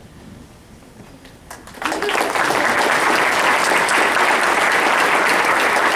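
Audience applauding. It starts suddenly about two seconds in, after a short quiet stretch, and keeps up steadily.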